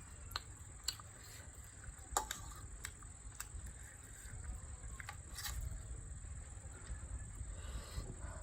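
Eating noises: scattered sharp clicks and smacks of chewing and utensils. Under them runs a steady high chirring of insects.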